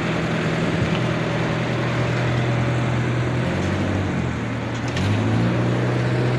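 Engine of road-paving machinery running steadily, its note dipping about four seconds in and rising again just after five.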